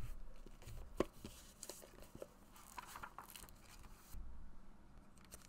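A leather-bound notebook being handled and opened: paper and leather rustling with small clicks and one sharper knock about a second in. A low hum comes in near the end.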